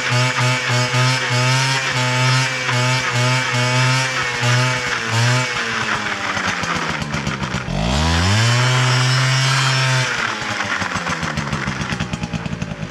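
Peugeot Fox moped's 50 cc two-stroke engine being revved while the moped stands still: a high buzz that pulses unevenly, drops away about six seconds in, then is revved sharply back up near eight seconds and held for about two seconds before easing off.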